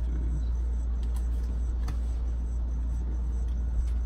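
A steady low hum, with a few faint light ticks as a stack of Pokémon trading cards is gathered up by hand.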